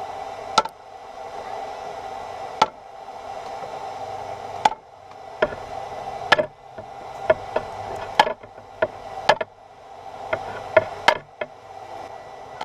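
Hammer striking steel rebar to cut it in half: sharp, ringing blows that come about two seconds apart at first and then more quickly, over a steady background hum.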